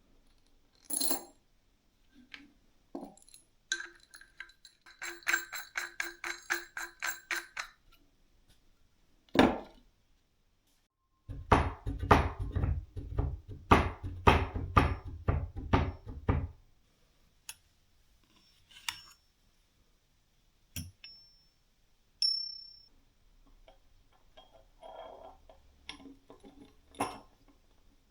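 Metal parts and tools being handled: scattered clinks and knocks, a run of quick ticking, and a louder rattling stretch with a low rumble in the middle.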